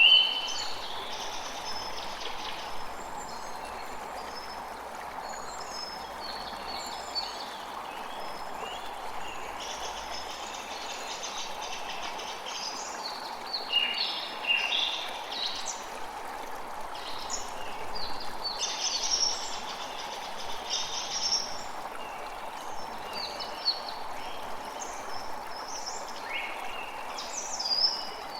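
Steady rush of running water, with several birds chirping and singing over it in short, quick calls that come thickest about halfway through and again near the end.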